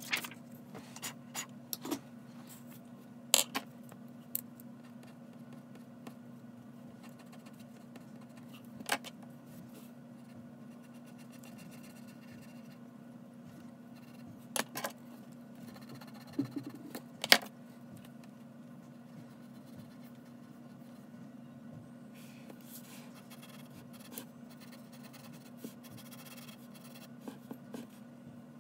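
Graphite pencil scratching on paper while sketching, broken by scattered sharp taps and clicks from the pencil and the sheet being handled, the loudest about 3 and 17 seconds in. A steady low hum underneath.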